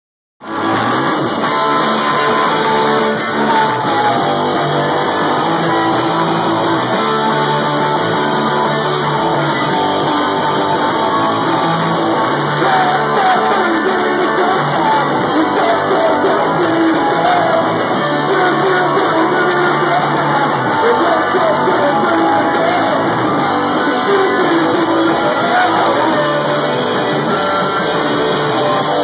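A rock band playing live and loud, with electric guitar and a voice singing over it, heard through a small room's acoustics.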